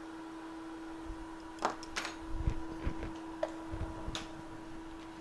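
A scatter of light clicks and taps from small hand tools being handled on a microsoldering bench, from about one and a half seconds in until about four seconds in, over a steady electrical hum.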